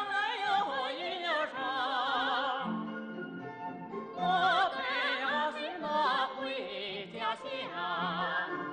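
A voice singing a Chinese folk song in a held, operatic style with strong vibrato.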